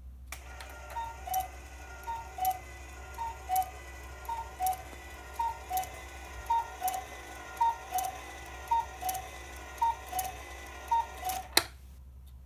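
Citizen MJ210E22 quartz cuckoo clock calling the hour. Its motor-driven bellows blow two whistles for a two-note cuckoo call, high then low, ten times about once a second for ten o'clock. Under the calls runs a steady motor whir with a click at each call, and the run ends with a sharp click as the motor stops.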